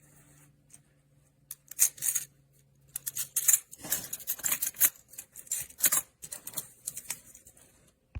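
Small plastic magnetic building cubes clicking and clattering as they are handled and snapped together: an uneven run of clicks, busiest from about two seconds in.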